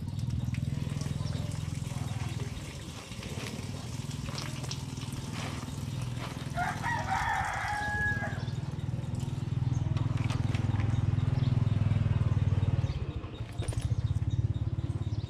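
A rooster crows once, about seven seconds in, over a steady low hum that dips briefly near the end. Faint rustles and knocks of rope being handled.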